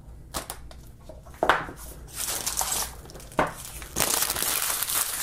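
Thin clear plastic wrap being peeled off a phone box and handled. It crackles a few times, then crinkles in louder stretches about two seconds in and again near the end.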